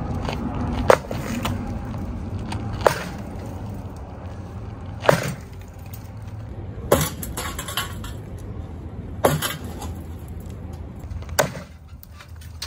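Sledgehammer striking a wall of a building being demolished: six sharp blows about two seconds apart, some followed by a short crackle of breaking material, over a steady low rumble.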